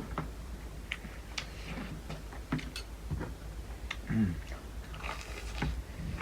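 Chewing and mouth sounds of people eating: scattered short wet smacks and clicks, with a brief hummed vocal sound about four seconds in.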